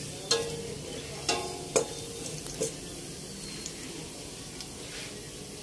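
Minced garlic sautéing in oil in a stainless steel pot, a steady sizzle. A metal ladle stirs it, clinking and scraping against the pot four times in the first three seconds.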